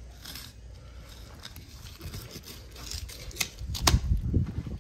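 A fillet knife slicing along the back of a barrelfish, making soft scraping and cutting strokes through the skin and flesh over the rib cage. A few louder knocks with low rumbling handling noise come about three and a half to four and a half seconds in.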